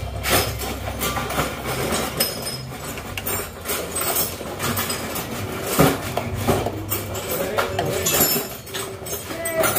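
Metal scraping and clinking as a thin flat tool pries along the seam of a sheet-metal engine valve cover, working loose the inner baffle plate that houses the PCV breather. Irregular sharp clicks and scrapes, the sharpest about six seconds in.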